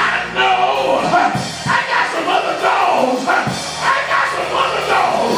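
A preacher's amplified voice chanting in a sing-song, hollered style over church band music with drums, the congregation calling out along with it.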